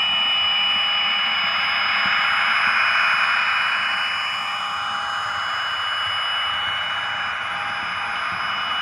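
Hornby class 43 HST TTS sound decoder playing its Paxman Valenta engine sound through the model's small speaker: a steady hissing turbo whine with thin high tones over it. It swells for the first few seconds and eases a little about four to five seconds in.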